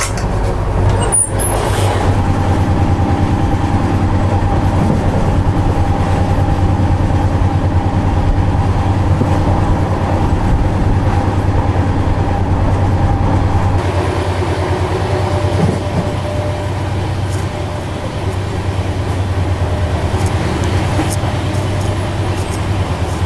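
Double-decker AC express coach running at speed on the track, heard at the coach doorway: a steady, loud rumble of wheels on rails with rushing air, easing a little about two-thirds of the way through.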